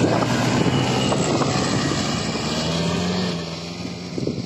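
Snowmobile engine revving as the sled pulls away across the snow, then dropping off sharply about three and a half seconds in as it moves into the distance.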